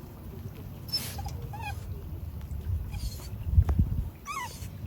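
A dog whining in a few short, high, wavering whimpers that fall in pitch, over a low rumble. There is a dull knock about three and a half seconds in.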